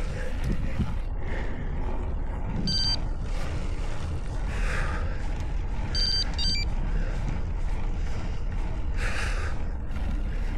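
Wind rushing over the microphone of a road bike rolling along a street, a steady low rumble. Short high electronic beeps from a Wahoo Roam bike computer cut through it: one about three seconds in and two in quick succession around six seconds, typical of its navigation turn alerts.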